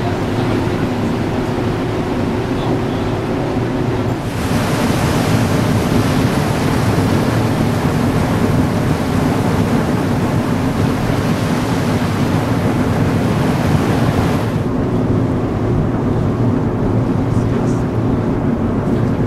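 Ferry's engines running with a steady low hum under wind on deck. From about four seconds in, for some ten seconds, a loud rushing hiss of churned wake water alongside the hull takes over, then the hum returns.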